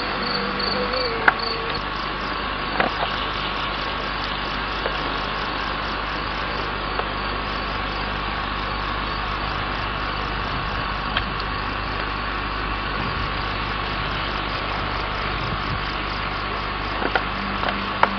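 Steady chorus of insects, with a short run of high, evenly spaced chirps in the first second or so and a few faint clicks.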